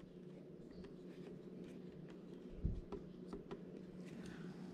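Faint handling noise around an open laptop: scattered light clicks and taps, with one louder thump about two and a half seconds in, over a faint steady low hum.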